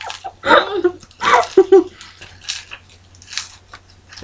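Breathy, tuneless whistle attempts blown through mouthfuls of crackers: puffs of air that hiss without forming a clear note, mixed with muffled voice noises in the first two seconds.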